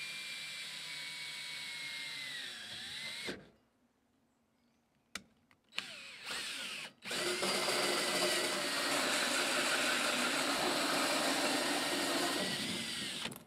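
Cordless drill spinning a large hole saw into the plastic wall of a rainwater tank. It runs for about three seconds, its whine sagging under load before it stops. After a pause and a short burst, it runs again for about six seconds, louder and rougher, and winds down near the end.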